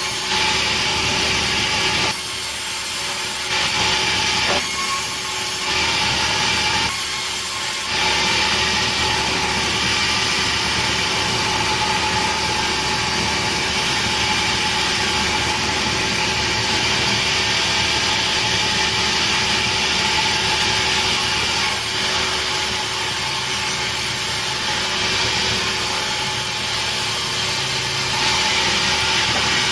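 Sawmill saw cutting through a petai log: steady, continuous cutting noise with a few faint steady tones, easing briefly in the higher range a few times in the first eight seconds.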